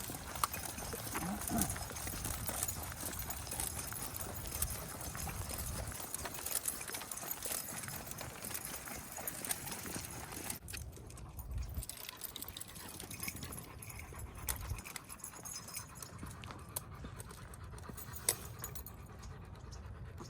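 Footsteps of a walker and a pack of dogs, with many small clicks over a steady hiss. The hiss drops away about halfway through.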